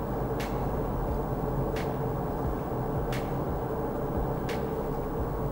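Road and engine noise inside an Isuzu D-MAX pickup cruising along a highway: a steady low rumble and hum, with a faint click about every second and a half.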